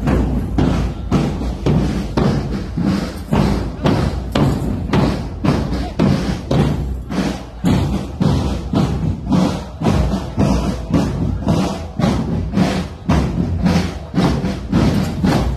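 Marching drum band's drums beating a steady march cadence, about two beats a second.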